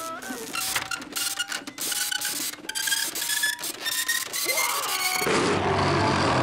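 Cartoon sound effect of a printer running: rapid mechanical clicking and clattering with short electronic tones that step upward in pitch. About five seconds in it cuts suddenly to a loud, rough, sustained noise.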